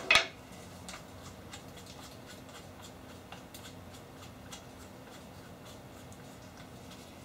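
Small workshop handling sounds: two sharp clicks right at the start, then scattered light ticks and taps of a drill bit and wooden pieces being handled, over a faint steady hum.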